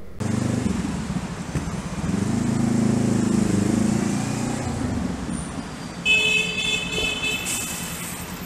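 Motorcycle engine running with traffic noise inside a road tunnel, swelling in the middle. About six seconds in, a vehicle horn sounds for about a second.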